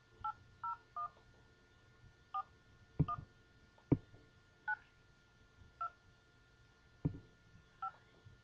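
Telephone keypad tones as a number is dialed: about eight short two-note beeps, one per key press, at uneven intervals. Three sharp knocks are mixed in, the loudest sounds here.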